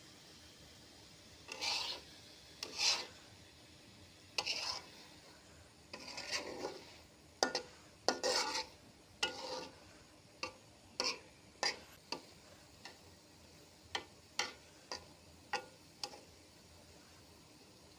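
A metal spoon or spatula scraping and stirring in a cooking pan, a dozen or so irregular strokes, the first ones longer and the later ones short and sharp.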